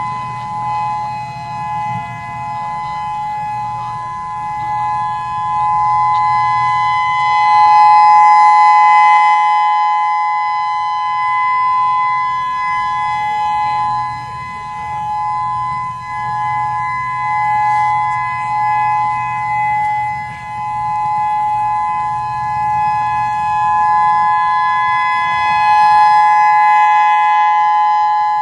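Federal Signal EOWS-612 electronic warning siren sounding its Alert signal, a steady two-note tone that holds one pitch throughout. The loudness slowly swells and fades as the speaker array rotates, loudest about a third of the way in and again near the end.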